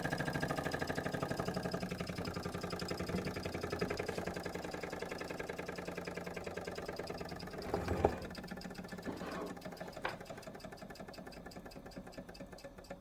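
Mamod TE1A toy steam traction engine's single oscillating cylinder running with a fast, even exhaust beat that slowly fades as the boiler pressure falls with the burner off. A short low sound about eight seconds in.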